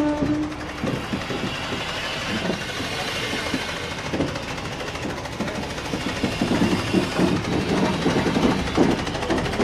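Steam tank locomotive moving off slowly at close range: a held horn note ends about half a second in, then uneven exhaust beats and clanking from the wheels and motion, growing louder in the second half.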